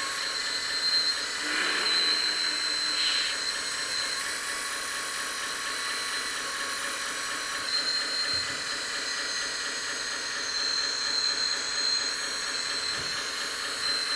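JDM-88 1/14 RC hydraulic loader running with its lift arm and bucket being worked: the electric motor and hydraulic pump give a steady high whine and hiss, mixed with the simulated engine sound from the model's sound module. The sound swells briefly about two seconds in.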